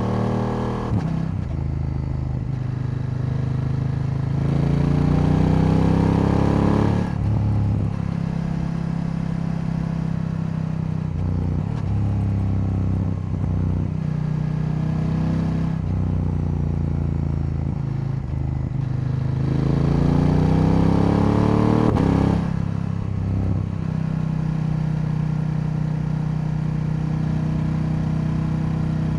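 KTM 890 Duke's parallel-twin engine under way on the road, mostly holding steady revs. Twice, about four seconds in and again near twenty seconds, it pulls harder with the revs climbing, then the pitch drops sharply at a gear change.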